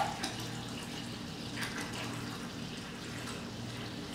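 White vinegar pouring in a steady stream from a plastic gallon jug into a glass measuring cup, splashing into the liquid already in the cup.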